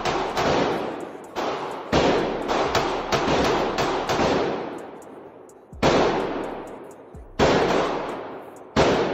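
Drum-fed Glock pistol fired at an indoor range: about a dozen sharp shots, a quick string at first, then slowing to single shots about a second and a half apart. Each shot leaves a long echoing tail.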